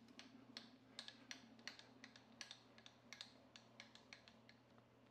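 Milling machine table being traversed along its Y axis: quiet, rapid, irregular clicking over a faint low hum, thinning out near the end.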